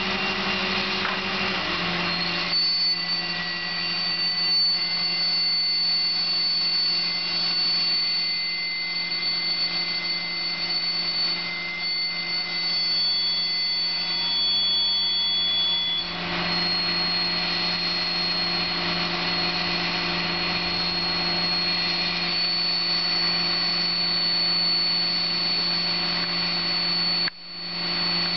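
Mobile crane's engine running steadily with a high whine over a low hum; the pitch shifts about two seconds in and again about halfway through, with a short break near the end.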